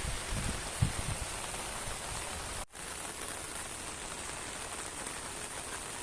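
Steady hiss of rain falling, with a few low bumps in the first second and a sudden momentary dropout nearly three seconds in.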